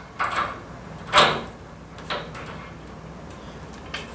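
Hand tools knocking and scraping on the metal fittings of a change-ringing bell during installation: a handful of short clanks, the loudest about a second in.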